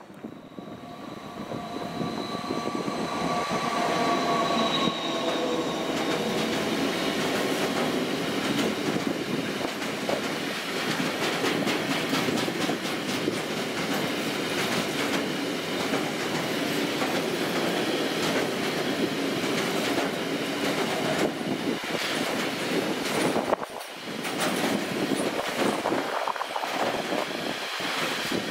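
A freight train of tank wagons passes close by on the nearest track. As the front of the train arrives, the noise builds and a few high whining tones slide slightly down in pitch. Then comes a long steady rush of wagons, with the wheels clicking rapidly over the rail joints and a brief dip in the noise near the end.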